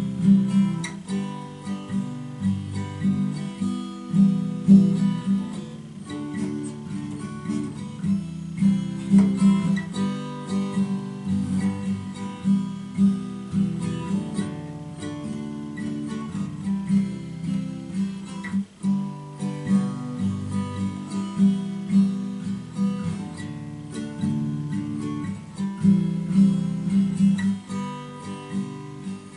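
Acoustic guitar being strummed, playing a steady run of chords with no singing.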